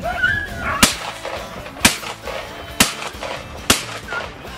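Four shotgun shots fired about a second apart, each a sharp crack.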